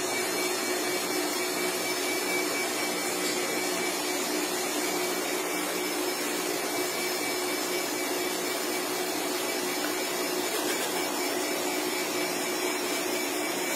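A steady mechanical whir, like a motor or fan running, with a faint steady whine in it.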